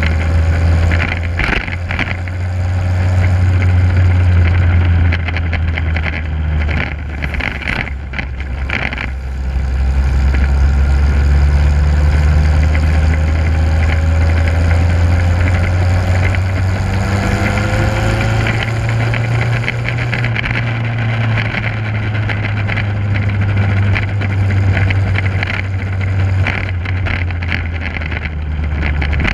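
Motorcycle engine running while riding, with wind buffeting the microphone. The engine's steady hum dips and rises in pitch a few times.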